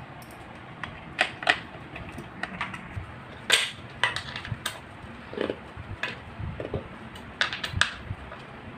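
Irregular metallic clicks and taps of a hex key working the bolts of an office chair's steel tilt mechanism plate under the seat.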